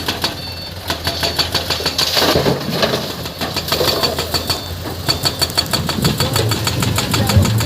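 Heavy diesel engine of construction machinery running steadily, with an even, rapid clatter of about six or seven beats a second.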